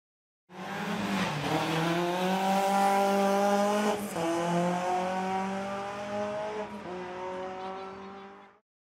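A rally car's engine running hard at high revs, its note breaking briefly about four seconds in and again near seven seconds, then fading out near the end.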